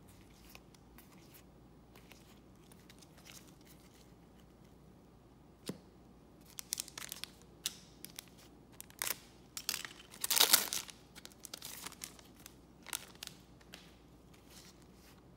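Trading cards rustle and tap softly as they are handled. Then a Garbage Pail Kids Food Fight sticker-card pack wrapper crinkles and tears open in a string of short rips, the loudest and longest about ten seconds in.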